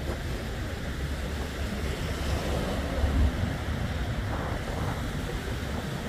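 Small sea waves washing against the shore, with wind rumbling on the microphone, strongest about three seconds in.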